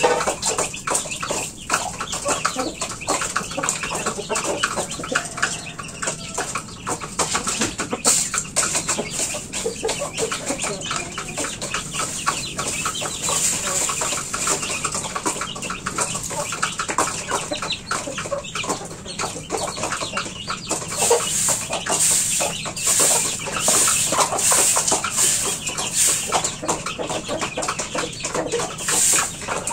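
Chickens clucking and chicks peeping. About two-thirds of the way in, a broom sweeping the dirt floor joins them in steady strokes.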